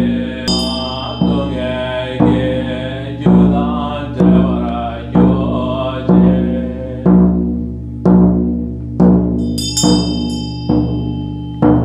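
A Tibetan ritual drum struck with a curved beater about once a second, under a deep, steady chanted mantra. A Tibetan hand bell (drilbu) rings briefly near the start and again for the last two seconds or so.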